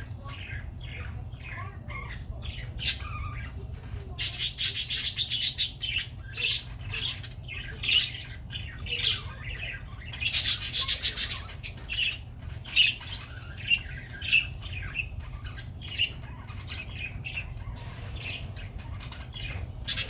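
Budgerigars chirping and chattering, with two stretches of harsh, rapid squawking, one about four seconds in and one about ten seconds in.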